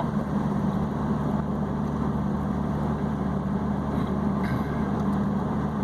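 Steady low hum of a car's engine and road noise, heard from inside the moving vehicle.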